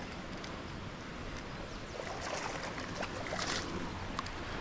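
Water splashing as a hooked bass is fought in toward the shore, over a steady wind rumble on the microphone; the splashing is strongest a little past the middle.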